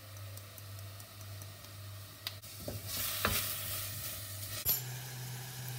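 Diced onions sizzling in olive oil in a stainless steel pot while a wooden spoon stirs them, with a few light knocks of the spoon. The sizzle grows louder about halfway through, as the stirring gets going.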